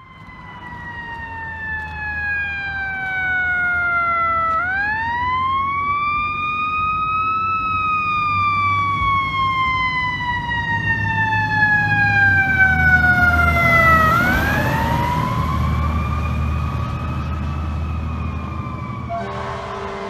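Fire truck siren wailing in long, slow sweeps: it falls, rises over about three seconds, falls slowly for several seconds, then rises and starts to fall again, over a low rumble.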